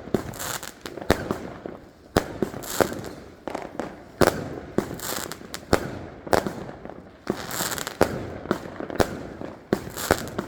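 Fireworks board going off: a rapid, irregular series of sharp firecracker bangs, several a second, with hissing between them.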